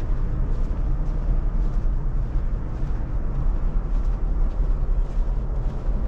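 Wind buffeting the microphone: a loud, steady low rumble that flutters rapidly in level.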